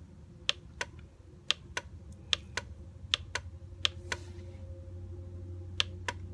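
Sharp clicks of the down arrow on a computer being pressed over and over, stepping a setting down in small increments: six pairs of clicks, the two in each pair about a quarter second apart, a pair roughly every three-quarters of a second, then a pause and one more pair near the end. A low steady hum runs underneath.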